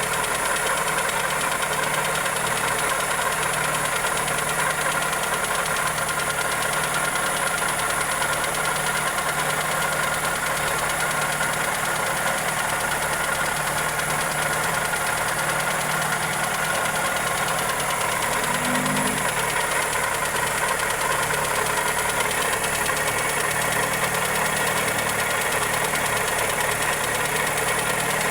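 Toyota 2E 1.3-litre four-cylinder engine idling steadily with a ticking knock, a noise suspected to come from the valvetrain or a connecting rod.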